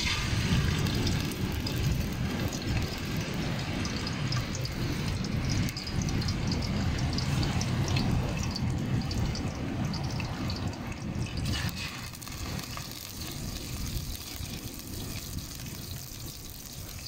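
Mullet cutlets sizzling and spitting in hot cooking oil in an aluminium pan over a wood fire, as the pieces are laid in. The crackle is busiest for about the first eleven seconds, then settles lower.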